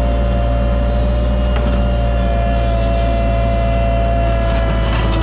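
Cat 303.5 mini excavator running steadily under load, with a steady hydraulic whine as the bucket digs a trench in gravel and soil. A few sharp clicks or scrapes come near the end.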